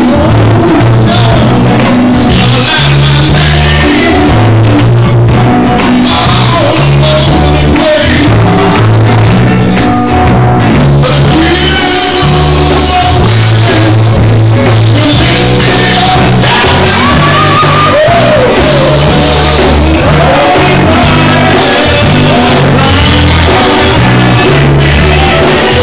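Live band playing loud with a lead singer, over a strong, steady bass line.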